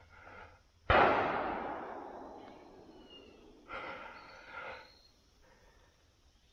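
A single 12-gauge shotgun shot fired up into the tree canopy at a squirrel, about a second in; the report echoes through the woods and fades away over a couple of seconds.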